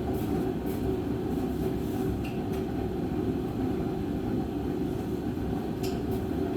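Space heater running with a steady low rumble, with a few faint light clicks from hand tools.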